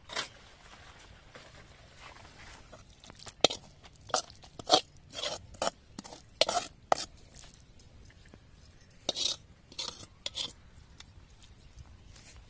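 A run of short, crisp scraping and crunching strokes, in one cluster a few seconds in and another about nine seconds in.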